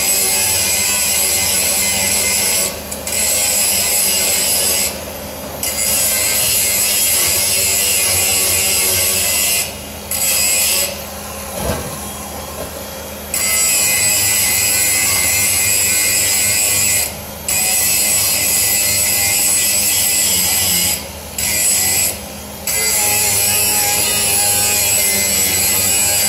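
Makita DGA404 18V cordless 100 mm angle grinder grinding into steel bar: a loud, rough, high scraping screech. It breaks off briefly several times as the disc comes off the metal, with the longest break lasting about two seconds near the middle.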